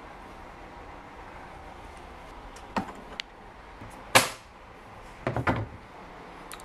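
Clicks and sharp knocks from a Pelican Air 1615 hard plastic travel case being handled and set upright on a shelf. The loudest knock comes about four seconds in, followed by a quick cluster of smaller knocks.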